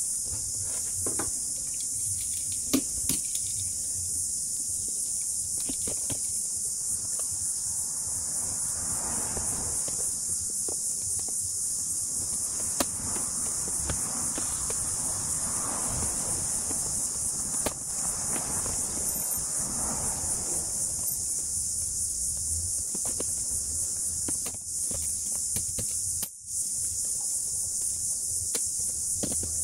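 Steady high-pitched chorus of crickets or similar insects. Under it come three soft stretches of scraping between about 8 and 21 seconds and a few light knocks from work on a plastic bin lid.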